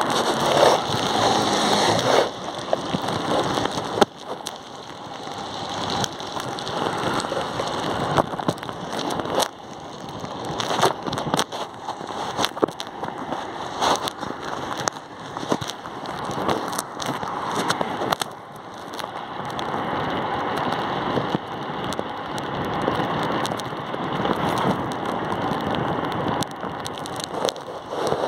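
Motorcycle riding on wet streets in light rain: engine and tyre hiss on the wet road, mixed with wind and raindrops on the microphone that give many scattered sharp ticks and an uneven, rising and falling level.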